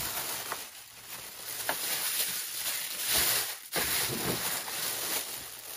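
A plastic bag rustling and crinkling as it is handled, with a few light clicks.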